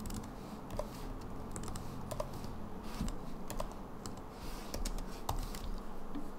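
Typing on a computer keyboard: irregular, scattered key clicks as lines of code are entered.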